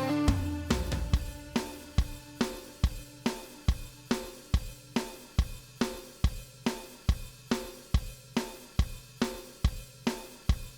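Background music: a steady rock drum beat with cymbals and snare, about two and a half strokes a second, after sustained guitar chords fade out in the first second.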